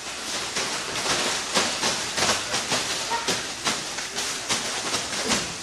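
Irregular slaps and scuffs of bare feet and bodies on a judo mat during practice, several a second, over a steady hiss.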